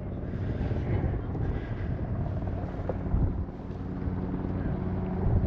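Low, steady engine rumble with faint humming tones, and wind buffeting the microphone.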